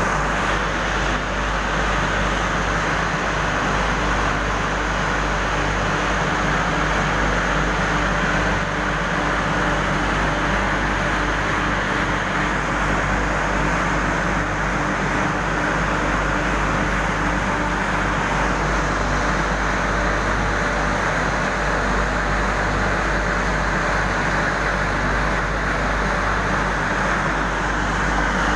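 Industrial furnace running: a steady loud roar with an even low hum underneath.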